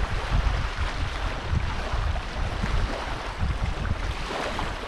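Wind buffeting the microphone outdoors: an irregular, gusty low rush over a steady hiss, with no distinct event.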